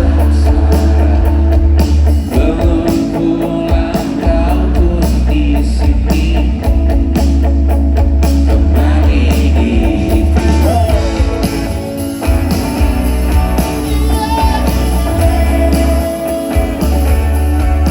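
Live band playing a rock-pop song with guitar and a heavy, booming bass, and a voice singing over it, recorded from the audience on a phone. The low bass drops out briefly a few times.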